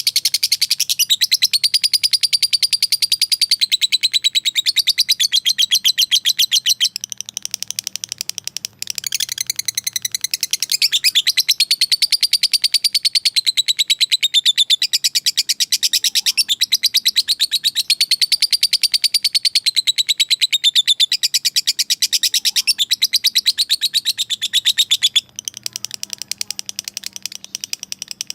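Lovebird giving its long, rapid 'ngekek' chatter to call out a rival: a fast, shrill, unbroken run of pulses with a wavering pitch. It softens and breaks briefly about seven to nine seconds in, and softens again near the end.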